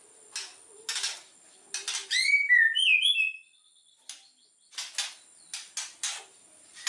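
White-rumped shama singing: short raspy notes, then a loud phrase of quick whistled up-and-down glides about two seconds in, and after a short pause a run of raspy notes again.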